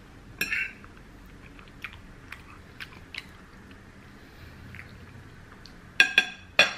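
Metal fork scraping a ceramic plate with a short squeal, then faint clicks of someone chewing. Near the end come three short, loud, high squeaks in quick succession.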